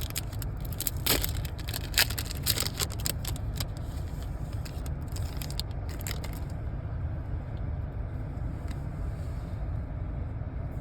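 Foil booster-pack wrapper crinkling and tearing as it is opened, in many sharp crackles for about six and a half seconds, then only a few faint ticks of cards being handled. A steady low rumble runs underneath.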